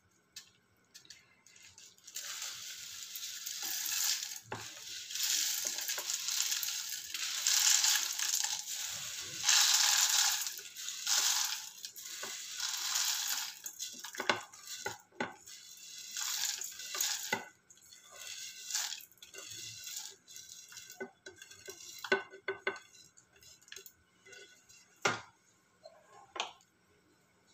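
Roasted dal and dried red chillies sliding off a plate and rattling into a steel mixer jar for several seconds. After that come scattered clinks and taps of dishes, among them the ceramic lid of a salt jar.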